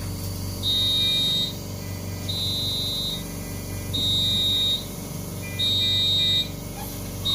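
Electronic alarm beeping: a high, steady tone about a second long, repeating evenly about every second and a half, over a steady low hum.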